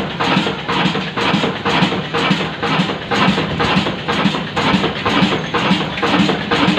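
Super Modern 35 HP single-cylinder 'kala' slow-speed diesel engine running at around 275 rpm: a steady, even thump of firing strokes, a little over two a second, over a steady hum.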